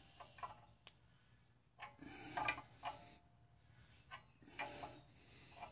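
Small metal wrench tightening a threaded plug in an air compressor tank's port: faint irregular clinks and scrapes, in three short bursts about two seconds apart as the wrench is turned and re-seated.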